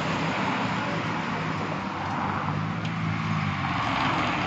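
Steady road traffic noise, with the low hum of a vehicle engine that swells and fades.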